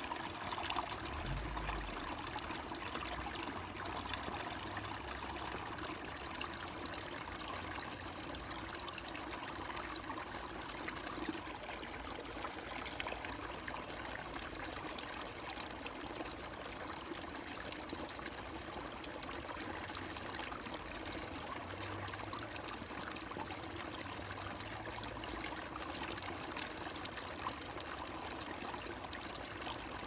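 Water of a stream or small river flowing and trickling steadily.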